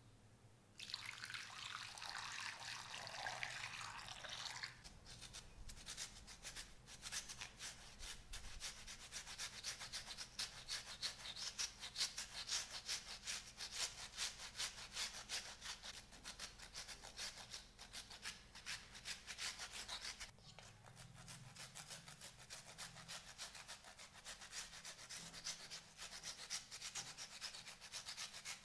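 Raw potato being grated on a flat stainless-steel hand grater: rapid rasping strokes, several a second, starting about a second in, with a short pause about twenty seconds in.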